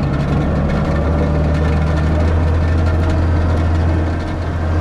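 Tractor engine running steadily, driving a vertical beater manure spreader, with a strong low hum throughout.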